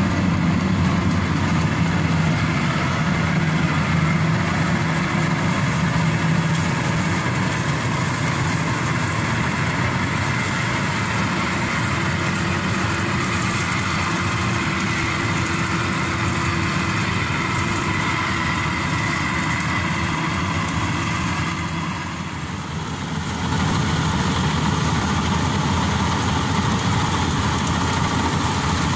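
Maxxi Bimo Evo Xtreme rice combine harvester running steadily as it harvests, its engine and machinery droning without letup. The sound dips briefly about three-quarters of the way through.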